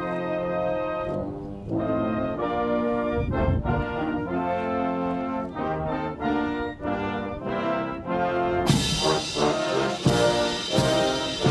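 Navy military band playing, brass-led, in sustained chords. About nine seconds in the full band comes in louder, with cymbal crashes on the beats.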